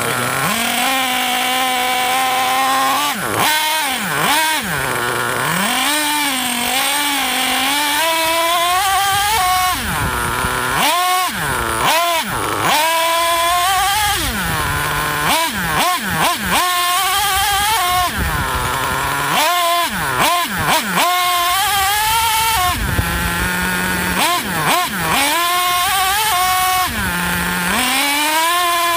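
Nitro glow engine of a Traxxas Nitro Stampede RC truck revving hard in repeated throttle bursts, its pitch sweeping up and down and dropping back to a steady idle a few times. It is heard up close from a camera mounted on the truck.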